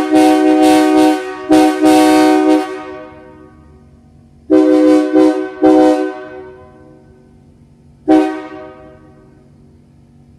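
Locomotive air horn sounding a multi-note chord: two long blasts, then three quick short blasts a few seconds later and a single short toot near the end, each dying away in an echo.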